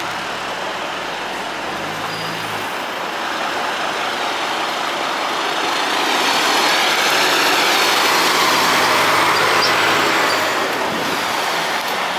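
Scania P280 fire engine's diesel engine running as the truck drives slowly past, growing louder to a peak about six to ten seconds in, then fading as it pulls away.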